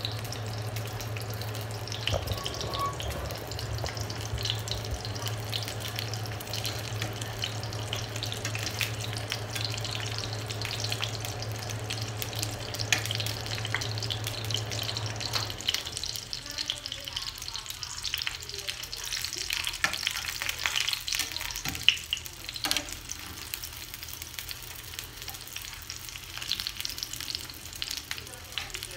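Pork lumpia frying in hot oil in a stainless skillet: a steady sizzle full of crackles and pops, with metal tongs clicking against the pan as the rolls are turned. A low steady hum runs under it and cuts off about halfway through.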